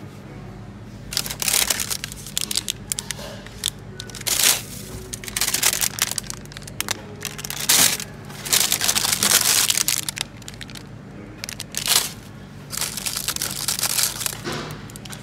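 Plastic ice-cream wrappers crinkling and rustling in irregular bursts as a hand rummages through packets in a chest freezer's wire baskets, over a steady low hum.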